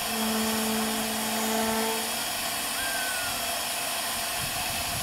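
Small narrow-gauge steam locomotive standing with steam hissing steadily. A steady low tone sounds for about the first two seconds, then stops.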